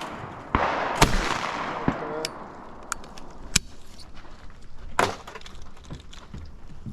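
Shotgun firing about a second in, its report echoing and fading over the next second, followed by scattered sharp clicks and clacks, the loudest about three and a half and five seconds in.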